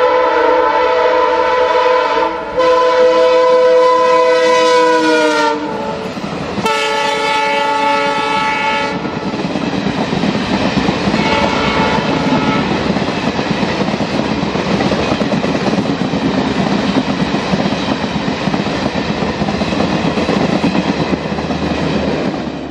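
A train's air horn sounds two blasts, a long one and then a shorter one, and the pitch drops slightly at the end of the first. It is followed by the steady rumble and clickety-clack of a train running past on the rails.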